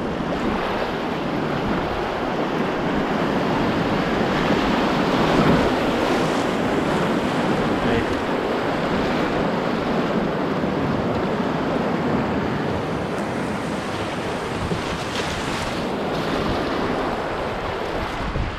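Rushing river rapids heard from inside an open canoe running them: a steady roar of whitewater and waves breaking around the hull, with wind on the microphone.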